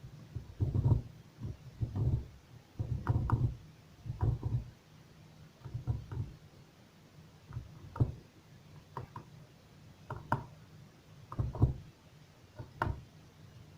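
Knife cutting a tray of hot basbousa, knocking against the baking tray in a string of uneven thumps and clicks about once a second.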